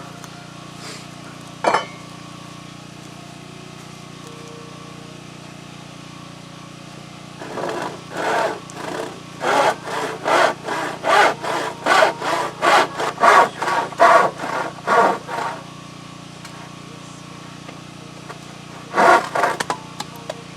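Wood being cut with a hand saw: a run of rasping back-and-forth strokes, about two to three a second, lasting around eight seconds, with a short burst of strokes again near the end. A single sharp click comes shortly after the start.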